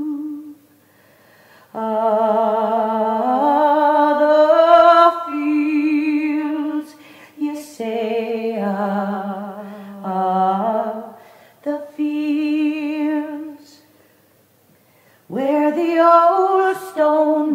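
A woman singing solo without accompaniment: a slow melody with vibrato on held notes, in phrases broken by short pauses near the start and about two-thirds of the way through.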